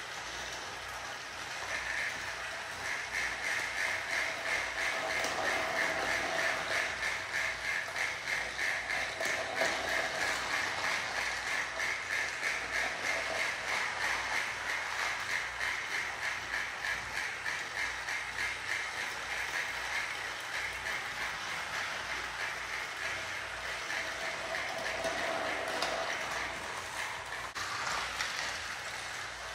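Several battery-powered toy trains running on plastic track: their small motors and gears whir with a rapid, even clicking. The sound grows louder about two seconds in and eases off after about twenty seconds.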